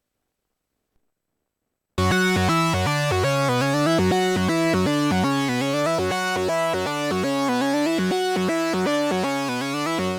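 Korg Minilogue four-voice analog synthesizer playing a preset: a fast run of notes over a moving bass line, starting suddenly about two seconds in after near silence and stopping at the end.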